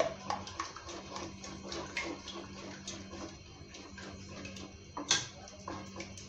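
Cooking utensil working in a pot of soup: irregular light clicks and scrapes, with one louder knock about five seconds in, over a steady low hum.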